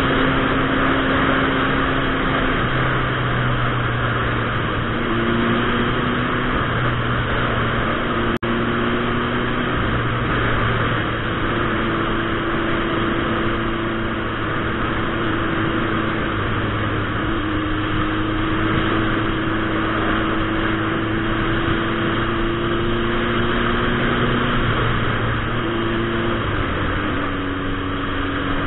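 Turbocharged 2006 Suzuki Hayabusa's inline-four engine running at a fairly steady road speed, its note stepping up and down in pitch a few times, under heavy wind rush on a helmet-mounted microphone.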